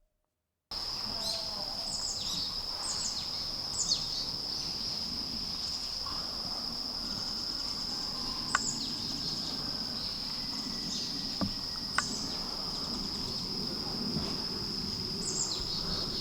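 Forest ambience: an insect's steady high-pitched trill runs throughout, with short descending bird chirps scattered over it and a few sharp clicks.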